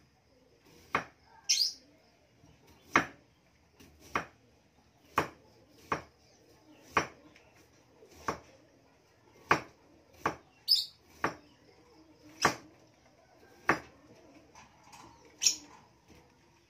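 Kitchen knife cutting down onto a round wooden chopping block, a sharp knock about once a second, about a dozen in all. A bird gives a short chirp three times.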